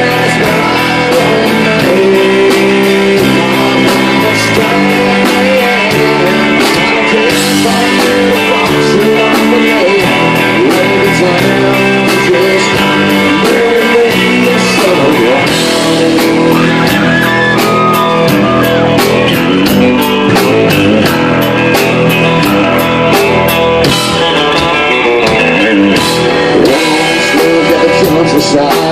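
Live rock band playing loud: electric guitar, bass guitar and a drum kit keeping a steady beat, with a man singing into the microphone.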